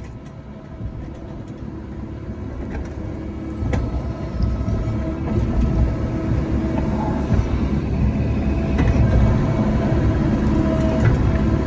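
Cat 305 mini excavator's diesel engine running, growing louder over the first several seconds, with a few sharp metallic knocks.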